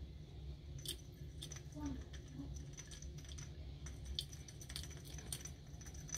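Scattered light clicks and taps, about one or two a second, over a low steady hum.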